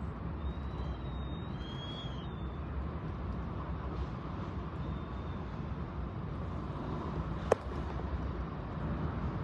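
Storm wind blowing in a steady rumble, with a faint high whistle in the first couple of seconds and a single sharp click about seven and a half seconds in.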